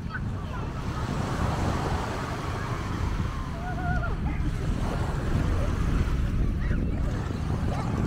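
Waves washing onto a sandy beach in a steady wash of surf, with wind rumbling on the microphone.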